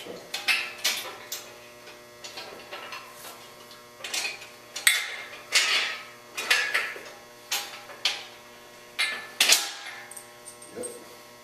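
Irregular metal clanks and clicks from steel engine-hoist parts being handled and fitted together, some with a brief ring, over a steady electrical hum.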